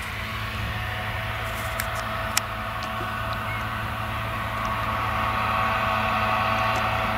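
Claas Jaguar self-propelled forage harvester running under full load, chopping whole-crop cereal for silage with a direct-cut header: a steady drone with a high whine on top, growing a little louder about halfway through. One sharp tick about two and a half seconds in.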